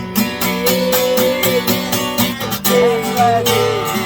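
Acoustic guitar strummed in a steady rhythm, with long, wavering melody notes held over it twice: a wordless passage of a song.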